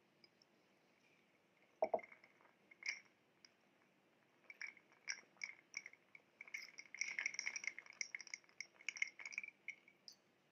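Close-miked wet eating sounds: fingers squishing in a glass of pink drink to fish out a soaked piece of bread, with small mouth clicks and soft chewing. There is a single knock about two seconds in and a dense run of wet clicks in the second half.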